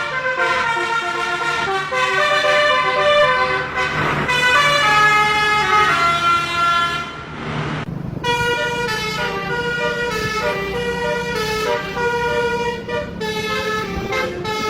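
Basuri multi-tone bus horn (telolet) playing a tune of held notes that step up and down in pitch, breaking off briefly about halfway before a new tune starts. A low steady hum runs underneath.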